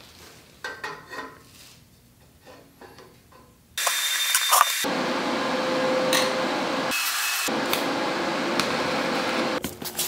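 Light knocks and rustles as a round tube is fitted into the frame. About four seconds in, an electric welding arc strikes and runs with a steady crackling hiss for about six seconds as the tube is welded onto the cargo bike frame.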